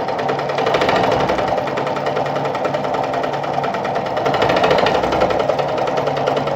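Sartina e-100 sewing machine running at a steady speed, its needle mechanism stitching rapidly and evenly as it sews a built-in decorative stitch pattern.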